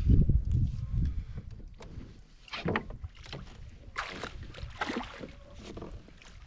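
Sounds of a fishing kayak in use: a low rumble of wind and handling on the microphone at the start, then scattered knocks and short splashy noises from the hull, paddle and gear on the water.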